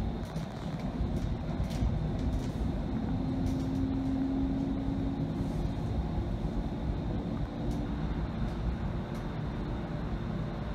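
Bombardier Flexity Freedom light rail vehicle heard from inside the passenger cabin while under way: a steady low rumble of the wheels on the rails. A humming tone from the drive rises slightly over a few seconds near the middle, then fades.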